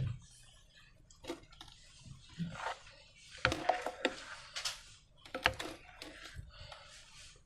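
Slime being handled: irregular wet squishes and sticky clicks, loudest about halfway through and again a little later.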